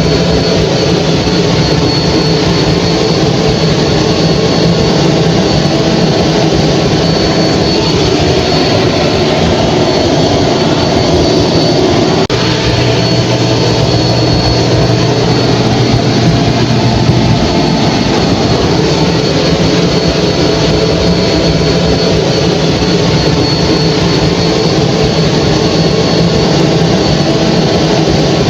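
Hair dryer running steadily: a constant rush of blown air with a low motor hum and a faint high whine. About twelve seconds in there is a slight seam, and a deeper hum joins for about five seconds.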